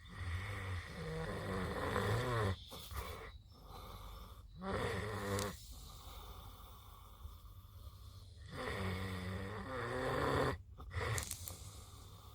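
A sleeping pig snoring: several drawn-out, rasping snores at a slow breathing pace, with quieter breaths between.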